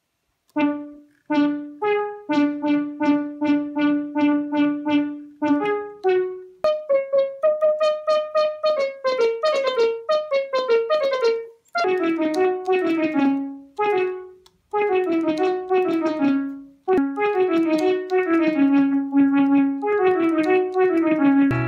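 Teenage Engineering OP-1 synthesizer played live on its keys: a solo keyboard line of short, quickly repeated notes in phrases that step downward in pitch, with brief pauses between phrases and no drums.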